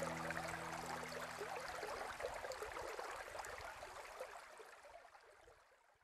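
Shallow mountain stream babbling over a stony bed, a steady flickering rush of water that fades out gradually toward silence. A few low sustained notes of background music die away in the first two seconds.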